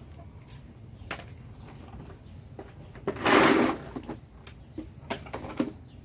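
Clicks and knocks from a car's interior door panel and its plastic trim pieces being worked loose by hand, with one louder scraping noise lasting under a second about halfway through.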